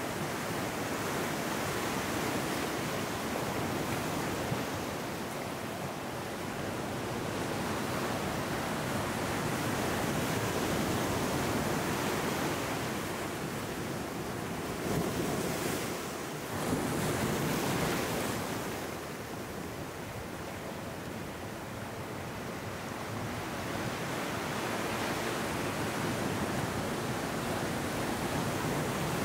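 Ocean surf washing in over a rocky beach: a continuous rush of breaking waves and foam that swells and eases, loudest a little past the middle.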